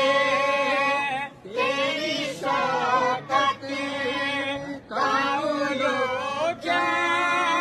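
A boy singing solo and unaccompanied in a high voice: long held, ornamented phrases with brief breaths between them.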